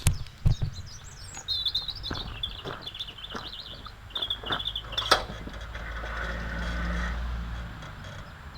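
A songbird singing a long run of quick, high chirps, fading after about five seconds, with a few scattered sharp clicks and a low rumble.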